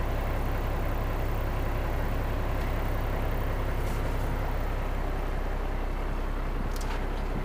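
A lobster boat's engine running with a steady low drone, with a couple of faint clicks, one about four seconds in and one near the end.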